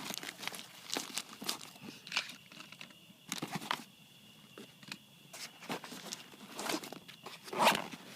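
Rustling, crinkling and small knocks of gear being packed back into a nylon backpack, in irregular bursts, with the loudest handling noise near the end.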